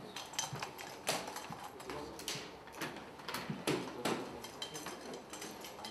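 Scattered light clacks and knocks at irregular intervals, several a second, of soft-tip darts hitting electronic dartboards around a darts hall, with faint voices underneath.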